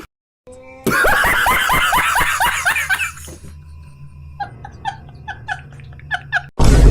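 Laughter: a loud run of quick rising-and-falling cries, about four a second, then softer, more widely spaced chirping laughs. Near the end comes a sudden loud swishing hit.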